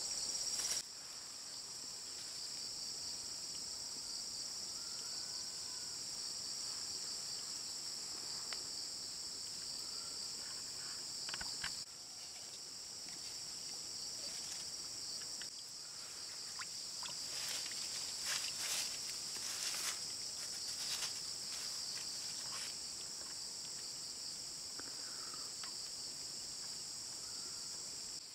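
Steady, high-pitched chorus of insects, with a few faint taps and rustles in the middle and later part.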